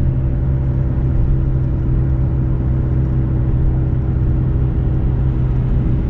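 Chevrolet Malibu's engine and road noise heard from inside the cabin while driving: a steady drone with a constant hum. The car is in reduced engine power with a failing alternator, which the owner takes for the sound of a bad alternator.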